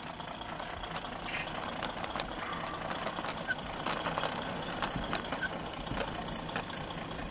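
Small garden-railway wagons rolling along the track, with light irregular clicks from the wheels.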